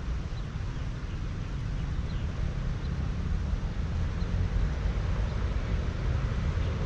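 Wind buffeting the camera microphone: a steady low rumble with an even hiss above it, growing slightly louder toward the end.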